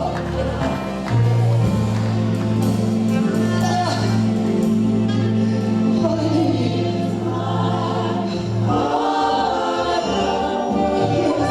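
Live gospel worship music: a choir and congregation singing over sustained keyboard chords and a held bass note that changes about nine seconds in.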